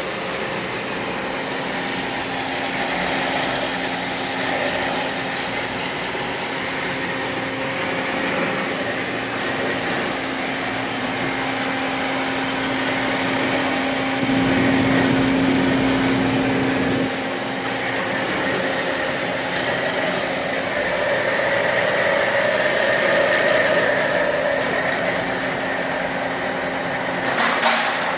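Used 320-model metal-cutting band saw running with a steady mechanical hum that grows louder for a few seconds about halfway through. A few sharp clicks near the end.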